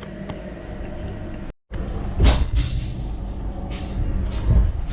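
Steady low rumble inside a passenger train carriage, with a few short knocks and rattles. The sound cuts out briefly about a second and a half in, then comes back louder.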